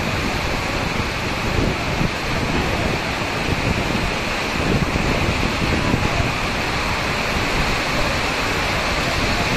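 Heavy rain falling, a steady, unbroken hiss of rainfall.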